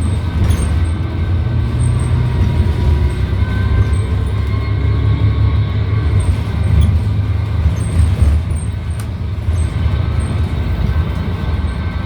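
City transit bus running under way, heard inside the cabin: a steady low engine and drivetrain rumble with a few faint high rattles.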